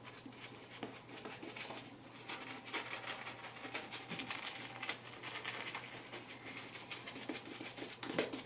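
Faint, scratchy brushing from a wet shaving brush working lather, swirled in round motions and painted back and forth, with many small irregular ticks.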